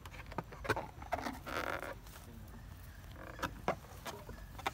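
Short calls from macaque monkeys, mixed with several sharp clicks and a brief rustling burst about a second and a half in.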